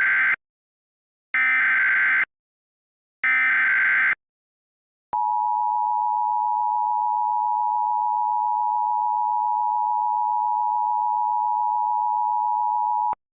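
Emergency Alert System SAME header: three bursts of buzzy digital data tones, about a second each, the first already under way at the start. About five seconds in, the EAS two-tone attention signal (853 and 960 Hz together) begins as a steady dual tone, holds about eight seconds and cuts off sharply near the end, marking the start of a new alert.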